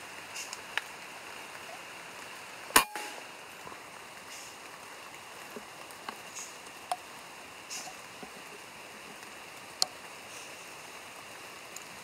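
A single sharp crack of a PCP air rifle firing about three seconds in, over a steady hiss of rain with scattered drips ticking on leaves.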